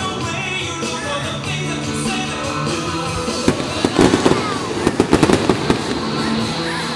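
Fireworks going off over music. About four seconds in comes a quick run of crackling bangs from aerial shells and crackling stars.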